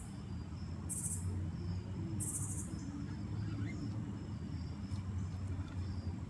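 Insects calling: two short, very high, buzzy chirps in the first three seconds, over a faint steady high trill and a low rumble.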